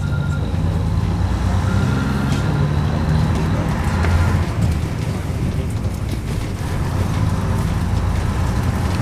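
Leyland PD3 double-decker bus's diesel engine running under way, heard inside the bus, its note rising and falling as it pulls along, loudest about four seconds in.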